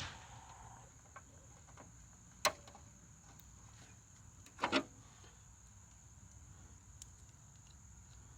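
Crickets chirping in a steady high trill, with two sharp knocks, one about two and a half seconds in and one near five seconds.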